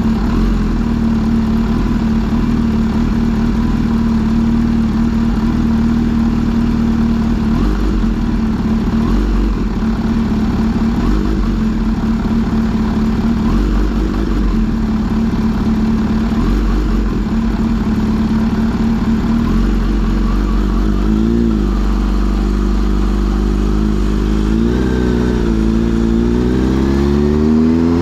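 Kawasaki Z H2 SE's supercharged inline-four engine running at a steady note for a long stretch, with two brief dips and rises in pitch, then revving up in a rising pull near the end.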